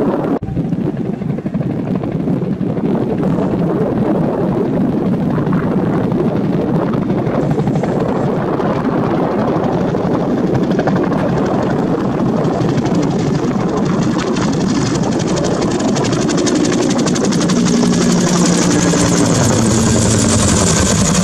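Two-bladed Bell UH-1 "Huey"-type firefighting helicopter flying with its rotor beating steadily. It grows louder and closer near the end as it passes overhead.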